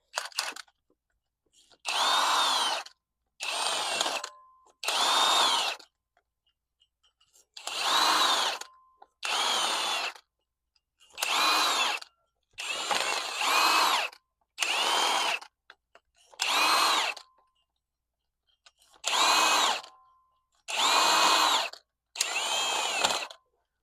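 Power drill run in about a dozen short bursts of about a second each, its motor spinning up and winding down each time, as it scrubs rust and scale off the brake hub before new rotors go on.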